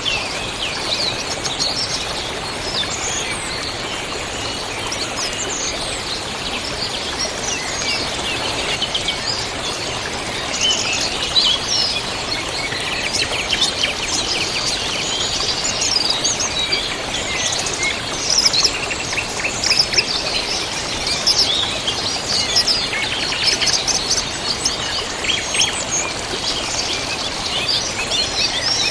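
Many small birds chirping and trilling in quick, overlapping calls over the steady rush of a river.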